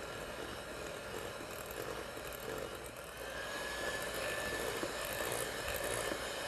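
Handheld electric mixer running at low speed, its beaters stirring flour into banana cake batter in a glass bowl: a steady motor whir, with a thin higher whine joining about halfway through.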